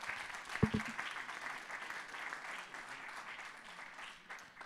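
Audience applauding, a dense patter of many hands clapping that gradually thins out, with one brief louder sound about half a second in.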